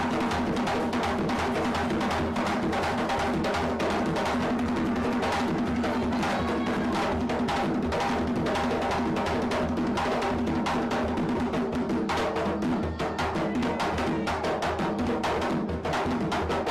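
A conga ensemble played live by hand: several drummers slap and tap the drumheads in a fast, dense Afro-Caribbean rhythm.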